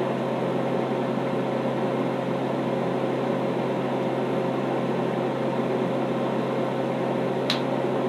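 Steady mechanical hum with a faint held tone, like an appliance fan running, and one sharp click near the end.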